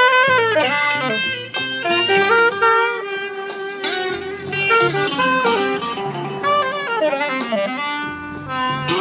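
Saxophone played live, a continuous melody with some sliding notes, over an accompaniment with a steady bass line underneath.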